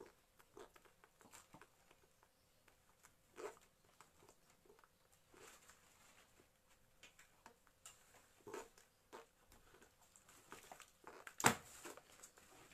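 Faint rustling and scattered light clicks and taps of folded clothes and plastic packaging being handled, with one sharper click near the end.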